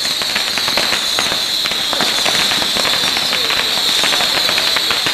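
A mass of babypijlen, tiny bottle rockets, launching all at once: a dense, unbroken crackle of rapid pops over a steady high-pitched hiss.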